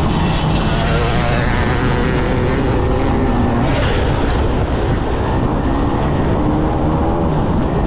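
Enduro motorcycle engine running under a rider on a race course, its pitch rising and falling with the throttle, with heavy wind and rumble on the action camera's microphone.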